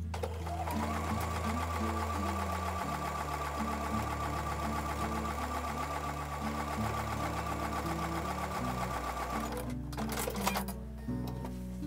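Electric sewing machine stitching a quarter-inch seam through two layers of quilting cotton, running steadily at a fast even stitch rate. It stops about ten seconds in, followed by a brief burst of clicking.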